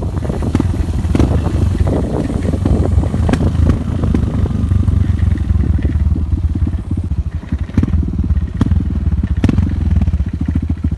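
Motorcycle engine running steadily, heard from on board while riding a rough dirt track, with scattered knocks and rattles.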